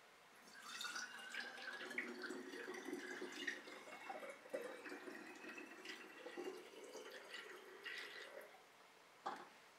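Water poured from a glass jug through a funnel into a glass bottle, faintly trickling and splashing, with the bottle's ring rising in pitch as it fills. The pour stops near the end, followed by a single light knock.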